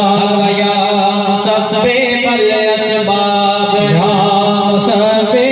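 Voices chanting together in a steady devotional chant, held on a near-constant pitch.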